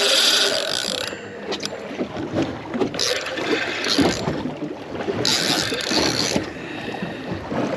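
Penn spinning reel being cranked against a hooked fish, its gears and handle working in uneven spurts, with wind buffeting the microphone.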